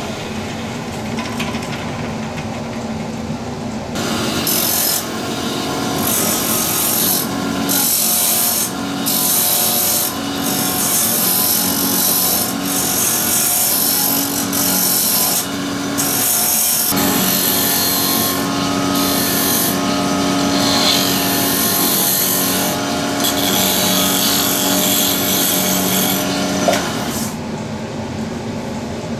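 Wood lathe running with a steady hum while sandpaper is held against the spinning wooden blank: a rasping hiss comes and goes in repeated passes from about four seconds in until near the end, with a single sharp click near the end.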